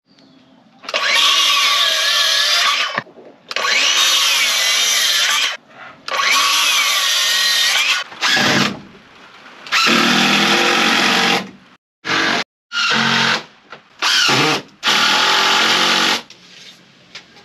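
A small cordless circular saw cuts through wooden boards in three runs of about two seconds each, its motor whine wavering in pitch under load. Then a cordless drill drives screws into wood in a series of shorter bursts.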